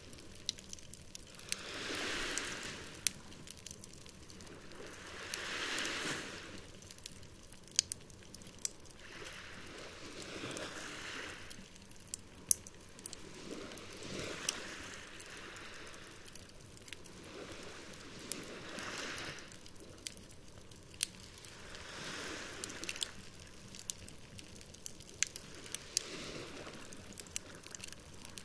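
Wood campfire crackling, with sharp pops scattered through, over small sea waves washing onto the shore in soft swells every three to four seconds.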